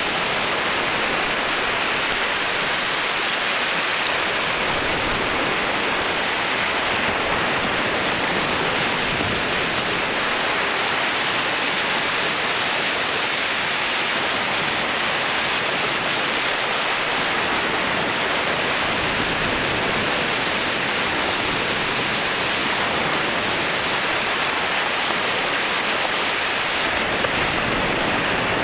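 Ocean surf breaking on the shore, a steady, unbroken wash of noise.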